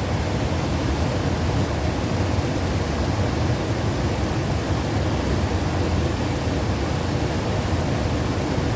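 A waterfall rushing, a steady, even roar of falling water. The falls are running high; they flow a lot quieter once the water calms down.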